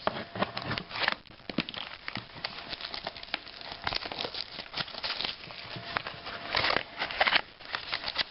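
Trading cards and their pack packaging being handled: irregular rustling, crinkling and small clicks, with louder handling bursts about a second in and again near the end.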